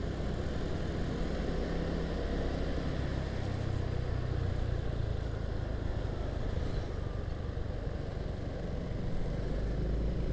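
Honda Vario automatic scooter's engine running steadily while riding, with tyre and wind noise.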